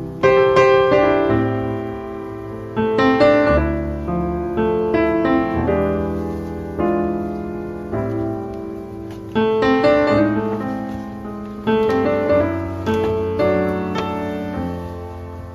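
Background piano music: a slow, gentle piece of struck chords and melody notes, each left to ring and fade before the next.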